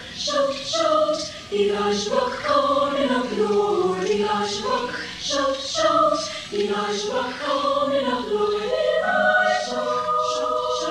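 Recording of a high school choir singing in quick rhythmic phrases, then settling on a held chord about nine seconds in.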